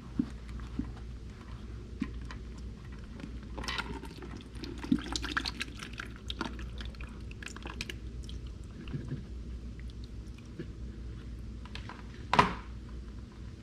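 Engine oil running out of the open drain of a Honda 100 hp four-stroke outboard, a trickling pour, with scattered small clicks and handling knocks and one louder knock near the end.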